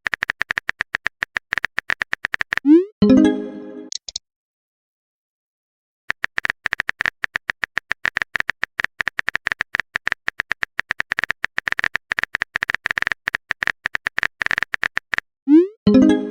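Rapid keyboard typing clicks, about seven a second, as in a texting app. About three seconds in a message notification tone glides upward into a short pitched chime, followed by about two seconds of silence before the typing resumes. A second notification tone comes near the end.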